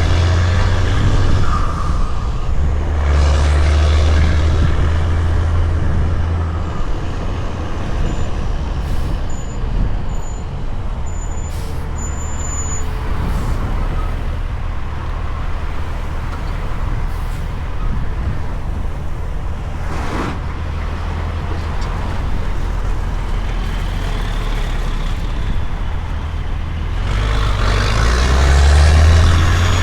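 Heavy truck's diesel engine running while pulling a heavy load, its low rumble rising and easing and getting louder near the end. A few faint short high beeps sound about ten seconds in.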